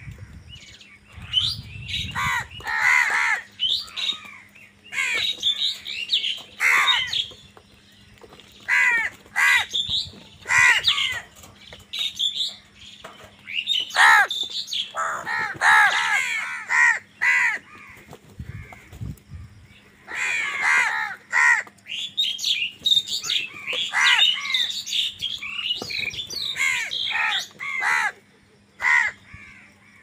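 A flock of house crows cawing, many harsh calls from several birds at once, coming in clusters with short pauses between them.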